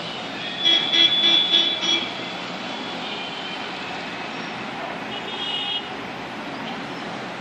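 Steady street traffic noise, with a vehicle horn beeping five times in quick succession about a second in and sounding again briefly later on.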